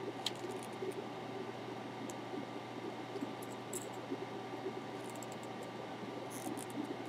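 Steady hum and hiss of a fume extractor fan running, with faint scattered clicks and brief crackles from the soldering work on the circuit board.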